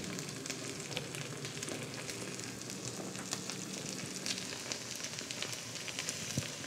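Oil sizzling and crackling steadily in a frying pan on a gas stove, with many small pops.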